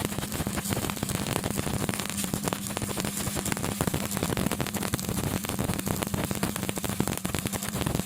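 Stick (arc) welding arc crackling steadily with a dense, sizzling spatter and a low electrical buzz underneath.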